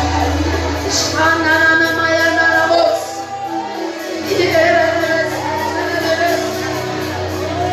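Church worship singing: voices, led by a woman's, sing a melody in long held notes over steady low bass notes from the accompaniment.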